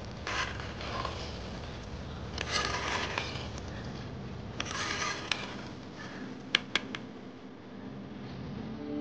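Three short scraping and rustling bursts from food being prepared by hand, then two sharp clicks about six and a half seconds in.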